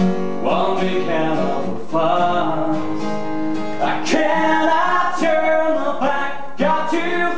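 A voice singing a slow ballad over an acoustic guitar, with long held notes.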